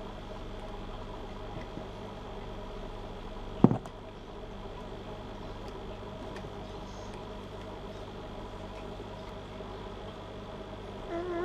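Steady low machine-like hum in the room, with one sharp knock about four seconds in.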